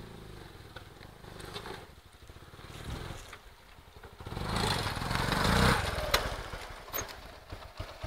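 An engine running, getting louder from about four seconds in and easing off again near the end.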